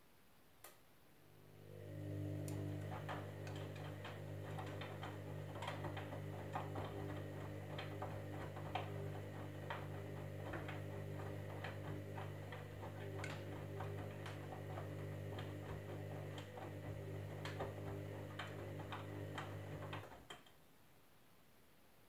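Candy Grand'O Vita washing machine in its wash phase: the drum motor starts with a click, hums steadily as it turns the drum for about nineteen seconds, and stops near the end. Irregular light clicks and ticks from the tumbling wash run over the hum.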